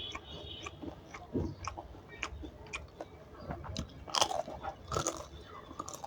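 A person chewing and crunching food close to the microphone, with scattered sharp mouth clicks and two louder crunches about four and five seconds in.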